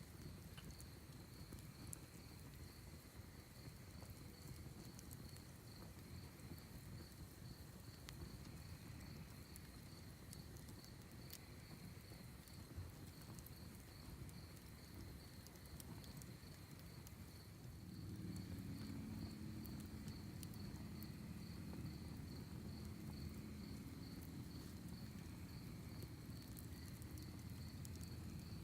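Quiet night ambience of crickets chirping in a steady pulsing trill, with sparse faint crackles from a wood fire. A low rumble grows louder about 18 seconds in.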